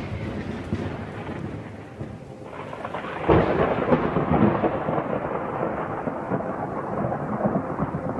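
Thunder rumbling over steady rain. The rumble fades during the first couple of seconds, then a new thunderclap comes in suddenly about three seconds in and rolls on.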